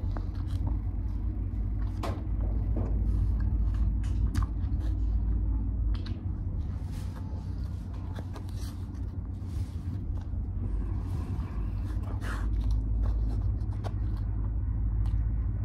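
Steady low hum and rumble of a running motor, with scattered light clicks and rustles of a styrofoam food tray being handled.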